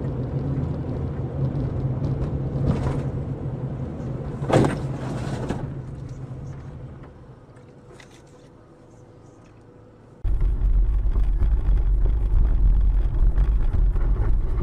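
Road and engine noise inside a moving car, recorded by a dashcam: a steady low hum with a brief sharp knock about four and a half seconds in, fading down. About ten seconds in it gives way abruptly to louder, steady low road rumble.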